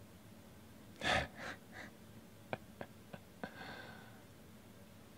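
A man's short breathy laugh, three puffs of breath fading away, followed by four sharp clicks about a third of a second apart and a last soft puff of breath.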